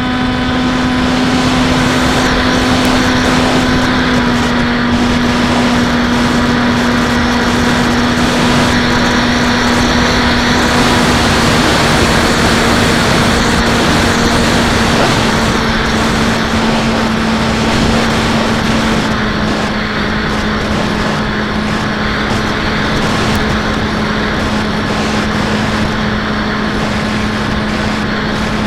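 Electric D2826-6 2200kv outrunner motor and 8x6 propeller of a Bixler 1.1 foam RC plane in cruising flight: a steady hum whose pitch sinks slightly a couple of times, over a heavy rush of wind.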